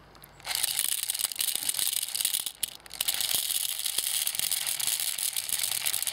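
Plastic airsoft BBs poured from a plastic bottle into the trap door of a high-capacity Thompson airsoft magazine: a continuous high-pitched rattle of many small beads, starting about half a second in.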